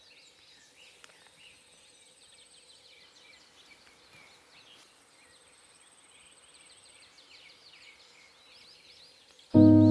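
Faint outdoor ambience of many small birds chirping, with a thin high insect-like whine that comes and goes. Near the end, loud music starts suddenly.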